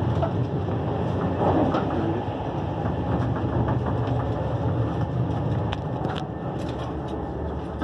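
Running noise inside a moving Railjet passenger coach: a steady low rumble from the wheels on the track, with scattered light clicks and knocks.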